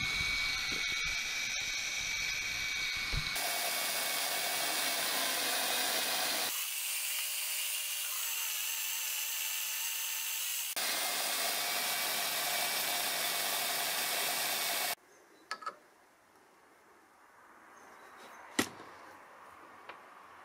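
Power tool cutting or drilling steel: a loud, steady whining rasp that changes abruptly a few times, then stops about fifteen seconds in, leaving faint clicks and a single sharp knock.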